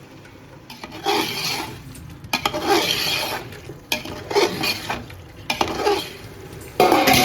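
A spoon stirring and scraping food in a cooking pot, in about five separate strokes roughly a second apart.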